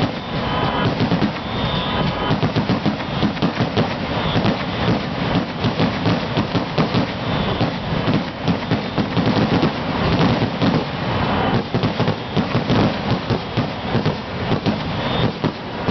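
Aerial fireworks shells bursting in a rapid, continuous barrage, many bangs and pops a second without a break.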